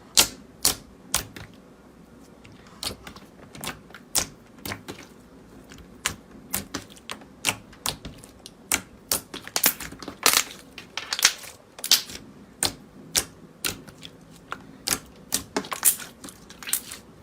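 A series of sharp, crisp clicks and crackles, irregularly spaced at about one to three a second.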